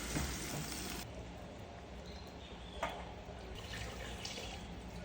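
Running water that cuts off suddenly about a second in, then a single sharp click near the middle and a few brief splashes.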